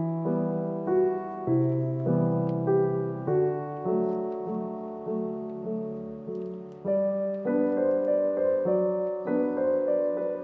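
Background piano music: a gentle melody of single struck notes that each fade away, changing about once or twice a second.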